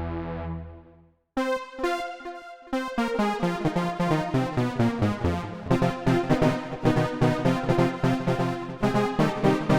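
Baby Audio BA-1 software synthesizer, an emulation of the Yamaha CS-01. A held note fades out about a second in, and after a short break a new patch starts with a few single notes, then runs into a fast repeating sequenced pattern of about four notes a second.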